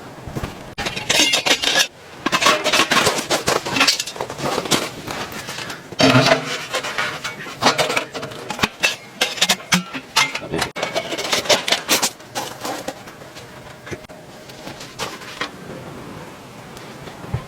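Clinking and clattering of dishes and cutlery in a run of short, sharp knocks, busiest in the first part and thinning out near the end.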